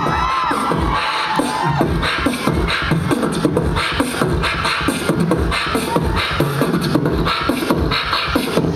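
Live beatboxing through a handheld microphone and concert PA: a steady beat of mouth-made kick drums and hissy snares, about one snare a second, with held low bass notes between the hits.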